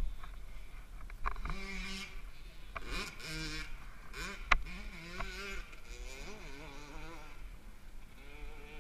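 A few sharp metallic clicks and clanks of a hand tool on a pit bike's engine, the loudest about halfway through, over faint, indistinct voices and wind rumble on the microphone.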